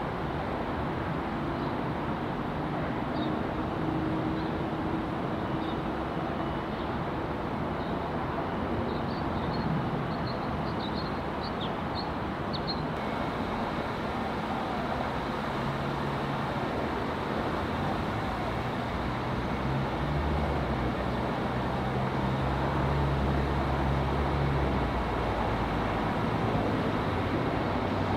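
Steady outdoor rumble of engines and traffic, with a low engine hum that comes in about halfway through and grows slightly louder toward the end.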